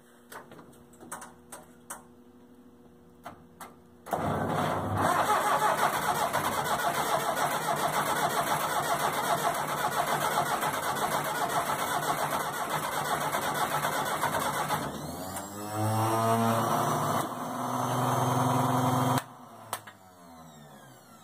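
1975 Massey Ferguson 285 tractor's diesel engine: a few faint clicks, then about four seconds in it starts and runs fast and loud. Around fifteen seconds in the revs drop to a steady idle, and the engine sound cuts off suddenly near the end.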